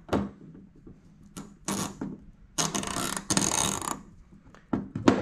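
Hand ratchet clicking as it is worked on an exhaust header stud: a few single clicks, then a quick run of rapid ratcheting clicks lasting over a second, then a few more clicks near the end.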